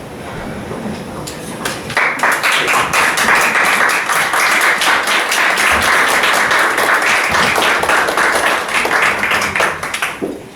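A roomful of people applauding. The clapping breaks out suddenly about two seconds in, holds steady, and dies away near the end.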